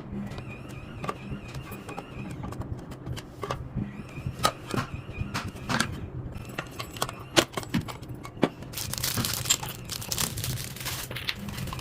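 Hard parts of an unboxed wooden toy kitchen clicking and knocking together as they are handled, then plastic packaging crinkling for about two seconds near the end, over a steady low hum.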